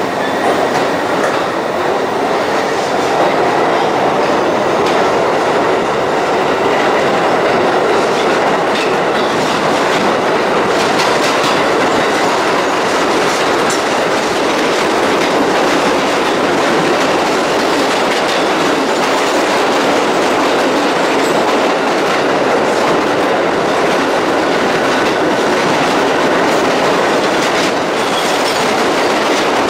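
New York City subway train on the 6 line, heard from inside the car, running loud and steady through the tunnel after pulling out of the station. The wheels and car give a dense rumble with scattered clicks over the rails.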